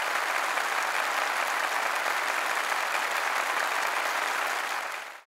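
Audience applauding steadily, fading out quickly about five seconds in.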